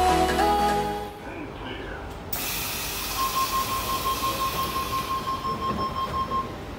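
Intro music fading out in the first second, then a Tangara electric train's door-closing warning: a steady high tone lasting about three seconds as the doors slide shut.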